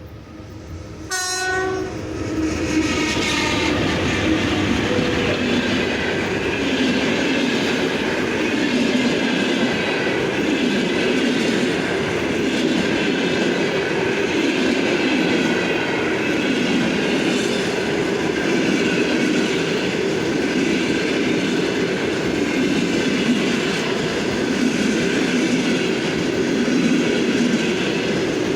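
VL80S electric locomotive gives one short horn blast about a second in, then hauls a passenger train past, with a loud, steady rumble of wheels over the rails.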